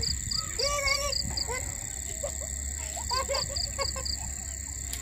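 Outdoor evening ambience of animal calls: a steady high-pitched drone and a regular high chirp about four times a second, with a single honk-like call about a second in and a burst of short squeaky calls around three seconds in.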